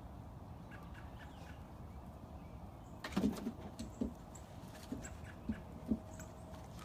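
A run of light taps and knocks from a dog moving about on a hard floor, about seven in three seconds starting about three seconds in, over a low steady hum.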